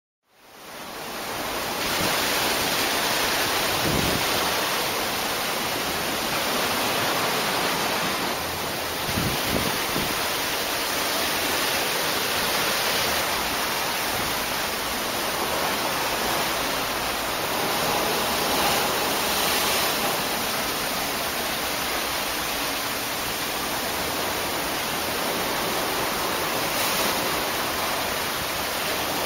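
Steady rushing of wind and sea, heard from the open deck of a cruise ship under way. It fades in over the first second, with a few brief low wind buffets on the microphone about 4 and 9 seconds in.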